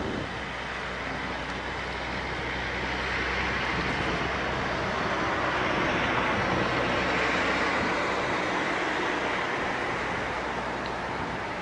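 A road vehicle passing on the highway: a rushing tyre-and-engine noise that builds, is loudest in the middle, and fades away, over a steady low hum.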